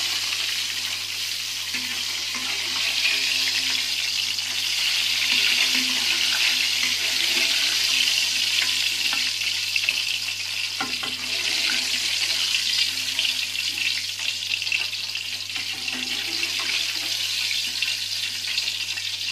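Hot oil sizzling steadily in a wok around deep-frying dried anchovies as they are scooped out, with a faint click of the utensils about eleven seconds in.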